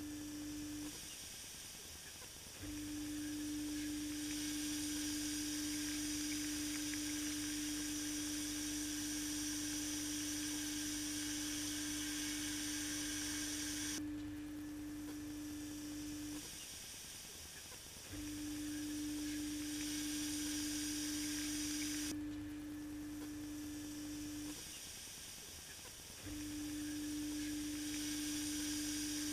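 Electric pressure washer pumping water into a welded aluminium tank: its motor runs with a steady hum, cutting out and starting again three times, with a hiss of water spraying over most of each run. The tank has a big leak, so it cannot hold pressure.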